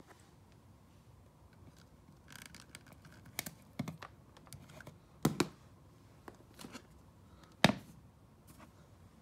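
Light clicks and taps of handling at a desk: a scattered run of small clicks, with two sharper knocks about five seconds in and again about two and a half seconds later.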